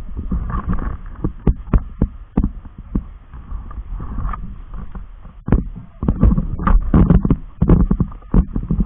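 Muffled low rumbling handling noise on the microphone of a handheld camera being carried along, with irregular clicks and knocks that grow denser in the last few seconds.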